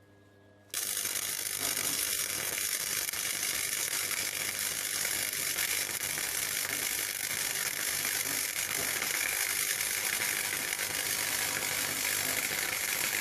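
Gasless (flux-core) MIG welder arc running a dense, steady crackle, starting a little under a second in, as a butt weld is laid between two pieces of metal.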